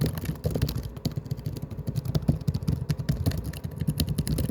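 Laptop keyboard's top-row keys tapped rapidly and unevenly, a dense run of plastic key clicks with dull thuds, picked up close to the microphone.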